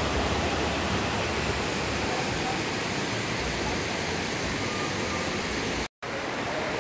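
Mountain waterfall rushing: a steady, even roar of falling water. It cuts out for a split second near the end.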